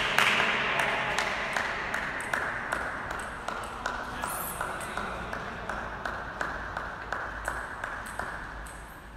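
Celluloid-type table tennis balls knocking sharply on tables and bats, many short clicks a couple of times a second, over hall crowd noise that is loud at first and fades away steadily.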